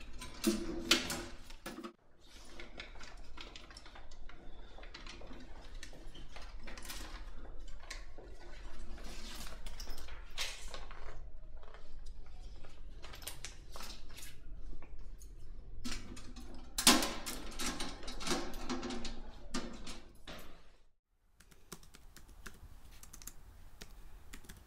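Irregular clicks and clanks of handling at metal mailboxes, with a louder ringing clank about a second in and another about 17 seconds in. After a brief silence near the end, rapid typing on a laptop keyboard.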